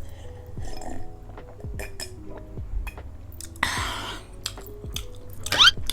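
Close-up mouth sounds of eating: chewing and small wet clicks, with a noodle slurp about two-thirds of the way through and another quick slurp near the end, over soft background music.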